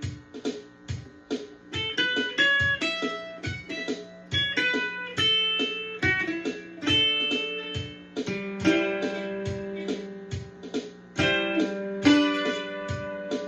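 Ibanez M500-ESB mandolin with new D'Addario strings, played in the key of G. Fast picked single-note runs alternate with ringing chord strums, and the fullest strums come in the second half.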